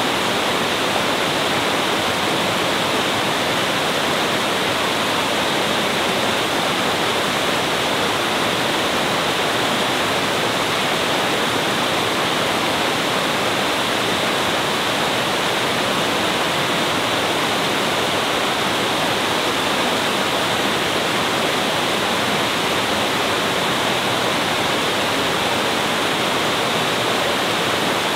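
Roaring water of a small cascade on a boulder-strewn mountain stream, rushing steadily over and between the rocks.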